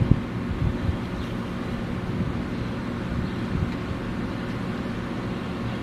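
Infiniti G35's VQ35DE V6 idling steadily on a cold start through a custom single-exit exhaust, with a brief louder burst right at the start.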